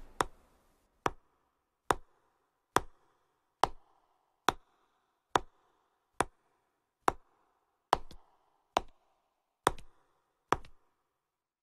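Slow, evenly paced hard footsteps, thirteen steps a little under a second apart, over a faint steady drone.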